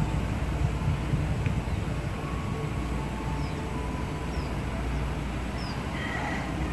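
Distant CC206 diesel-electric locomotive running as it pulls a passenger train away, heard as a steady low rumble under wind on the microphone. Faint high chirps come about once a second in the second half.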